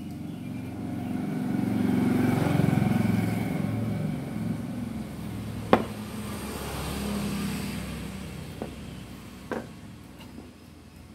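A motor vehicle passing by: engine noise swells over the first few seconds and fades, with a smaller swell a few seconds later. A sharp click about six seconds in and two fainter ones a few seconds later, as the metal parts of an opened clothes iron are handled.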